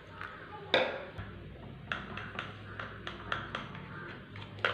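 A spoon stirring thick flour batter in a plastic bowl, clicking and tapping against the bowl's side in a string of light irregular clicks, with a sharper knock just under a second in.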